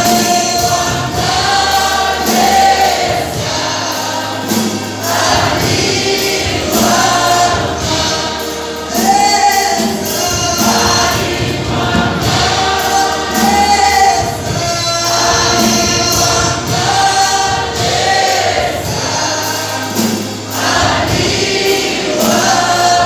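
A choir and lead vocalist singing a gospel song live, with a steady bass line from a keyboard and light drum hits underneath.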